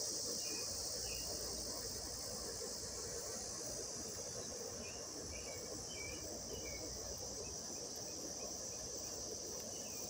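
Evening chorus of crickets and cicadas, a continuous high buzz, over the low steady hum of a neighbour's air conditioner, with a few short chirps scattered through it.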